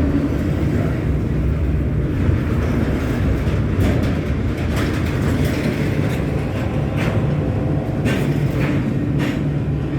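Norfolk Southern freight train rolling past, a steady low rumble with occasional clicks.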